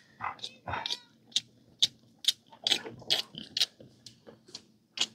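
A young calf sucking milk from a bottle's rubber nipple, making quick sucking clicks in an even rhythm of about two a second.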